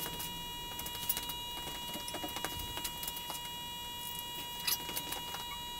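Quiet shop background with a steady faint whine and a few light, scattered ticks and taps.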